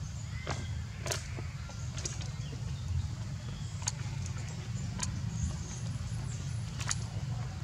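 Outdoor ambience: a steady low rumble with a handful of short, sharp clicks scattered through it.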